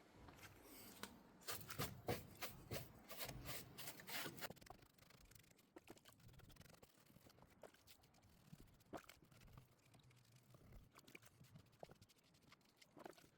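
Faint, irregular scraping, rubbing and light clicks of a dirty plastic tail-light bulb holder being cleaned by hand, busiest in the first few seconds.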